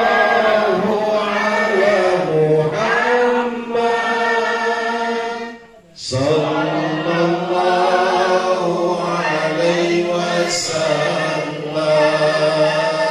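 Group singing of salawat, Arabic devotional chanting in praise of the Prophet Muhammad, in long drawn-out phrases, with a short pause about six seconds in.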